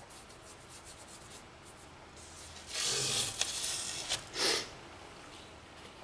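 Faint brush strokes on a textured painting board, then two louder rubbing scrapes with a click between them as the board is slid and turned on the table.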